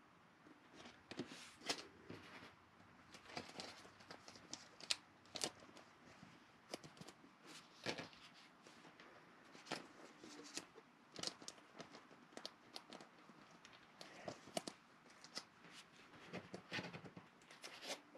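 Faint handling noise of trading cards and a clear plastic card sleeve: a string of short, irregular scrapes, rustles and taps.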